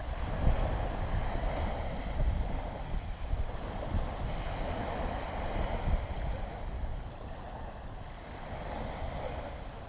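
Wind buffeting the microphone in gusts over the steady wash of the sea, easing a little in the second half.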